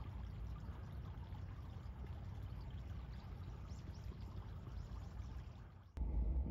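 Outdoor wind noise: a steady rustling hiss with a low, fluttering rumble of wind buffeting the microphone. About half a second before the end it cuts suddenly to louder music.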